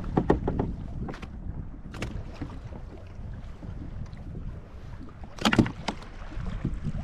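Wind buffeting the microphone on a fishing kayak, with sharp clicks and knocks as a caught fish and the rod and reel are handled. The loudest cluster of knocks comes about five and a half seconds in.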